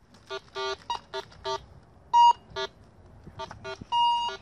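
Handheld metal detector beeping over a dug hole: a quick, irregular run of short electronic tones at a few different pitches, with two longer, louder tones about two seconds in and near the end, signalling metal in the soil.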